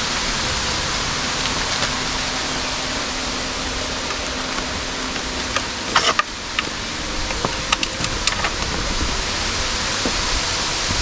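A steady rushing hiss, with a few short clicks and light rustles around six to eight seconds in.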